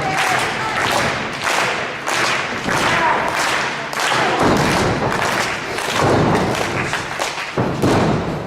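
A rapid run of heavy thumps, roughly three a second, continuing throughout.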